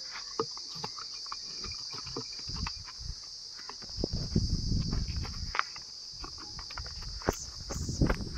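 Steady high-pitched chirring of insects, with scattered low thumps and rustling of footsteps on a dirt path, heaviest about halfway through and again near the end.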